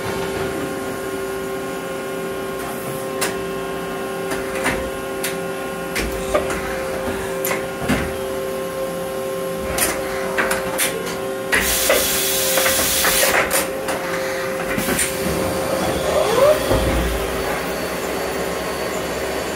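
Mazak Integrex 40 CNC multitasking turning center running: a steady two-tone motor whine with scattered clicks and knocks, and a burst of hissing about twelve seconds in.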